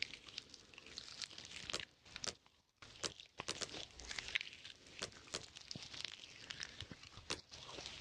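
Slime being squeezed and poked by hand, making irregular crackling and popping clicks.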